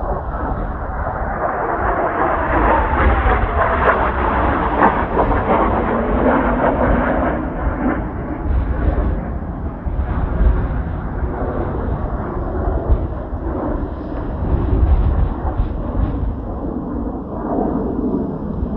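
Kawasaki T-4 jet trainers flying past, their twin-turbofan noise swelling over the first few seconds with a falling pitch, then easing, and swelling again near the end. Heavy wind rumble on the microphone underneath.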